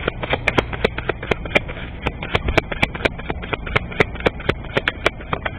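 Tarot cards being shuffled by hand: a quick, uneven run of sharp card clicks and slaps, about four a second.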